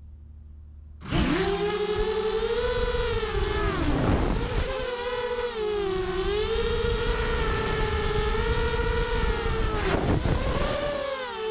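Racing quadcopter's four Cobra 2204 2300kv brushless motors with DAL 5045 bullnose props, spooling up about a second in for takeoff and then whining loudly in flight. The pitch rises and falls with the throttle and drops briefly twice, near 4 s and 10 s, as the throttle is chopped.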